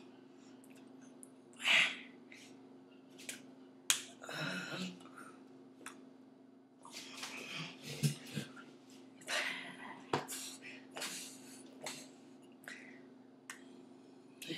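Hands slapping and brushing against each other and against clothing as sign language is performed: a string of sharp irregular clicks and taps, with soft breathy mouth sounds between them. A steady low electrical hum runs under it all.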